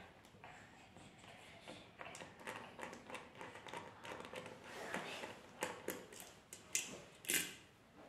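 Small precision screwdriver unscrewing the platter clamp screws on the spindle of an opened hard drive, making faint irregular metal ticks and scrapes, with a couple of sharper clicks near the end.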